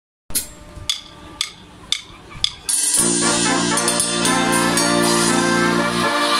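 Drumsticks clicked together five times, about two a second, as a count-in; then a Mexican brass banda comes in together, holding loud sustained brass notes over percussion.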